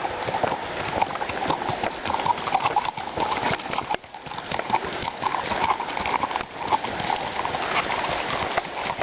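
Horses' hooves clopping along a trail in an irregular run of sharp knocks, as a team of several horses is walked past.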